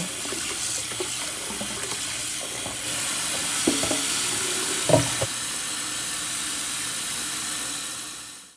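Kitchen faucet running steadily into a glass bowl of raw chicken drumsticks in a stainless steel sink, water splashing over the meat. A few light knocks sound in the middle, the loudest about five seconds in, and the water stops just before the end.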